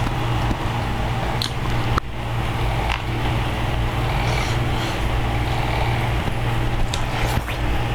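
A steady low rumble with a few short, sharp clicks of eating scattered through it, about two seconds in, around three seconds, and twice near the end.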